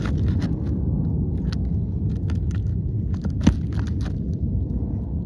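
Steady low rumble of wind on the microphone, with scattered scrapes and clicks of a pry tool working under asphalt shingles to free a nail, and one sharper knock about three and a half seconds in.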